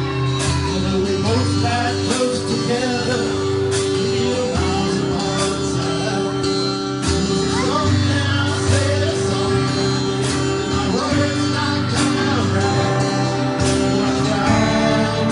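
Live rock band playing: male lead vocals over electric guitar, keyboard and a drum kit, with drum hits about once a second.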